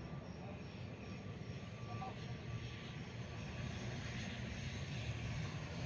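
An ATR 72-600 twin-turboprop airliner's engines make a steady low drone that grows slowly louder as the aircraft nears.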